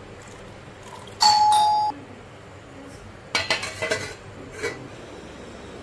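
A loud two-note chime, a higher tone then a lower one, that cuts off short after under a second. A couple of seconds later steel clatters and rattles as a stainless steel plate is handled over a steel pot, with one more clink after.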